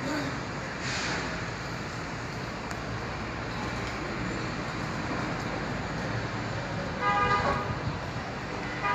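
Steady street traffic noise, with a car horn sounding for about half a second around seven seconds in.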